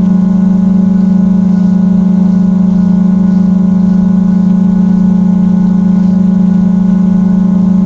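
Quadcopter drone's propellers and motors hovering, heard from the drone's own microphone as a loud, steady hum that holds one pitch with a ladder of higher overtones.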